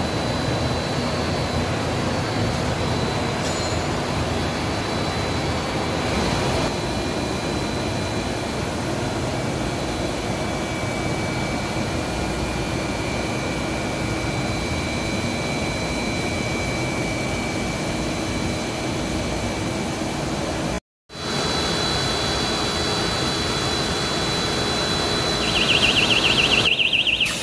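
Steady industrial machine noise of a running plastic blown film extrusion line, with faint steady high whines over it. The sound cuts out for a moment about two-thirds of the way through, and near the end a louder, rapidly pulsing buzz joins in for about a second and a half.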